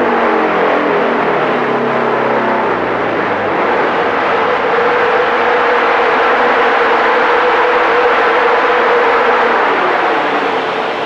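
Motorcycle engine dropping in revs over the first few seconds as the throttle is eased, over the loud, steady rushing of a heavy home-built inertia dyno wheel spinning at speed. A steady tone runs through the rushing and falls in pitch near the end.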